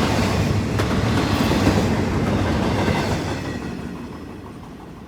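Double-stack container cars of a CSX freight train rolling past with a clickety-clack of the wheels. The sound fades steadily from about three seconds in as the train moves away.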